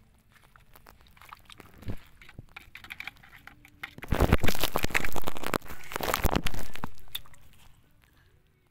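Dense crackling and clattering from a red plastic bucket of freshly caught crabs as the hooked catching rod is poked into it. The burst is loudest for about three seconds from midway, with light scratches and taps on the rocks before it, and it dies away near the end.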